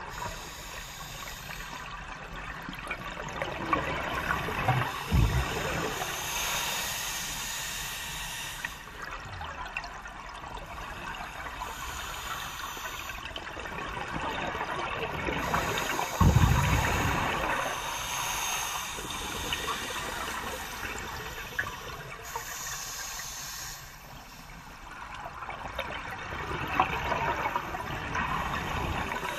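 Scuba diver breathing through a regulator underwater: slow, regular breaths, each a hiss of air drawn through the regulator followed by a rush of exhaust bubbles.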